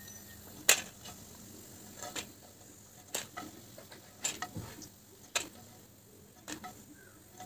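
Sharp clinks of a spatula knocking against a frying pan and a steel plate as fried fritters are lifted out and set down, roughly one a second and unevenly spaced. The first clink, about a second in, is the loudest.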